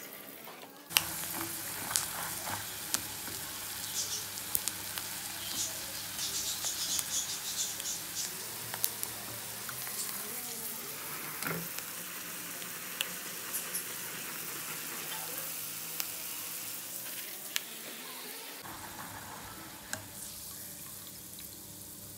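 Peanuts deep-frying in hot oil inside a wire spider strainer, a steady sizzle with scattered sharp crackles. The sizzle starts suddenly about a second in.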